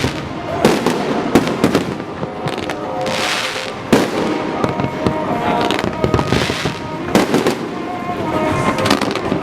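Fireworks display: sharp bangs of shells bursting every second or so, with swells of crackling in between.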